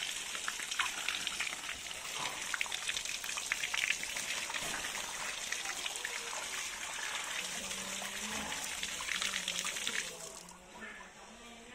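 Running water pouring and splashing onto a large fish on a tiled floor as a hand rubs and rinses it. The splashing dies down about ten seconds in.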